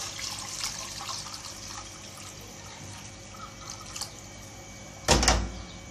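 Hot water poured from a pot into a frying pan of fried tomato and pea sauce, splashing into the sauce, heaviest in the first second or so. About five seconds in comes a single loud thump.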